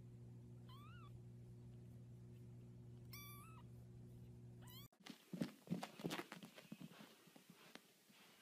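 A newborn kitten mewing twice, two short high-pitched calls about two seconds apart, over a steady low hum. After a cut comes a run of irregular soft knocks and rustles.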